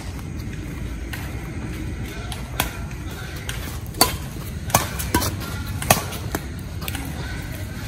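Badminton rackets striking a shuttlecock back and forth in a rally: about six sharp smacks, the loudest about four and six seconds in, over a steady low background rumble.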